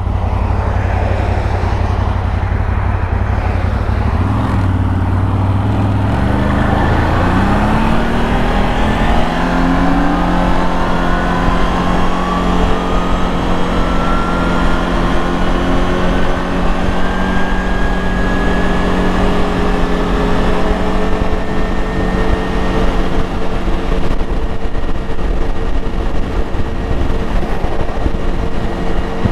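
ATV engine running, then speeding up from about six seconds in, its note and a whine above it climbing in pitch before settling into a steady run at higher speed.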